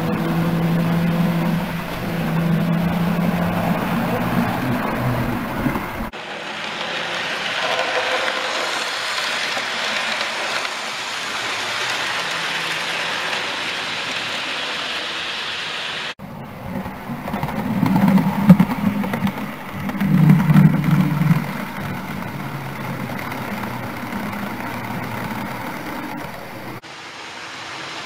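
Model railway locomotives running on the layout's track: a steady electric motor hum and wheel rumble on the rails. The sound changes at each cut, with two louder passes about two-thirds of the way through.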